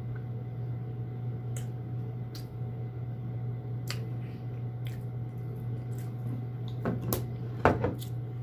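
Home heating running with a steady low hum, with a few scattered clicks; near the end, a burst of wet chewing and mouth sounds from someone eating.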